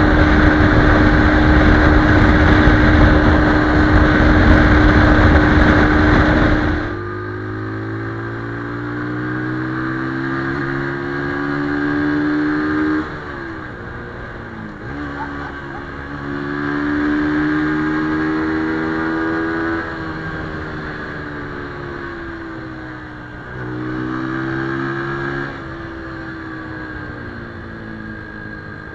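Brixton BX 125 R's single-cylinder 125 cc engine, heard from the rider's seat. First it holds a steady high pitch under heavy wind noise. After about seven seconds the wind drops away, and the engine note climbs under throttle, then dips sharply several times at gear changes and throttle lifts.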